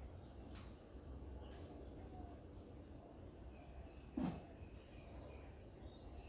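Faint, steady high-pitched insect trill, with a few soft bird chirps, over a low outdoor rumble. A single short thump about four seconds in is the loudest thing.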